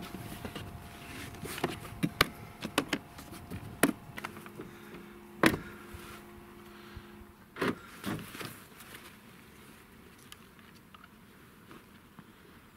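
Gear being handled at an open pickup truck door: a string of sharp knocks and clicks with rustling of clothing and a backpack, the loudest knocks about five and a half and seven and a half seconds in. A faint steady hum runs under the first seven seconds, and the handling grows quieter after about nine seconds.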